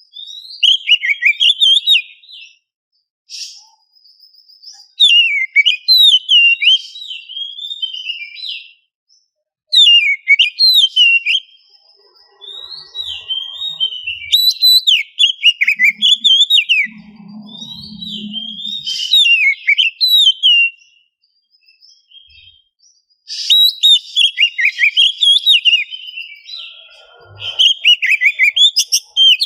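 Oriental magpie-robin singing a loud, fast, varied song of whistles and chatters, in bursts of a few seconds with short pauses between them.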